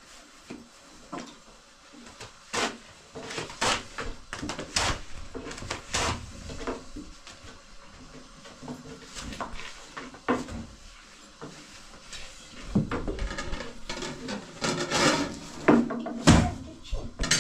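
Irregular knocks and clatter of objects being handled and set down, busier and louder near the end.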